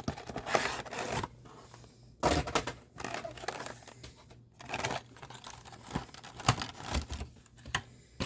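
Packaging of a card gift box crinkling and tearing as it is opened by hand, in a run of irregular rustles and rips. The loudest rips come about two seconds in and at the very end.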